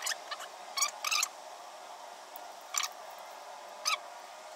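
Vinyl registration decal being peeled slowly off its backing paper, with four short sounds of the sheet coming away: two close together about a second in, and two more near the end.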